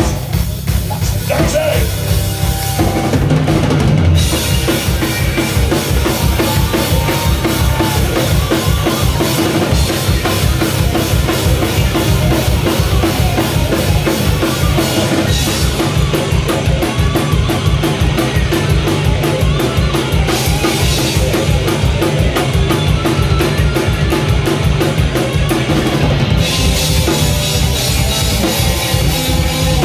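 Live heavy metal band playing loud through a club PA: drum kit with a fast, steady bass drum beat and snare under electric guitars. The full band comes in about three seconds in after a sparser opening.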